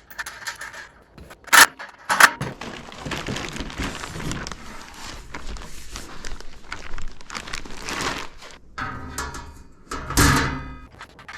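Metal parts of a DEWALT planer stand being handled during assembly: two sharp knocks, then a stretch of rattling and scraping, and a louder ringing sound near the end.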